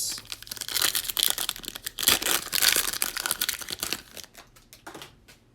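A trading-card pack's wrapper being torn open and crinkled in the hands: dense crackling for about four seconds, then a few light clicks and rustles.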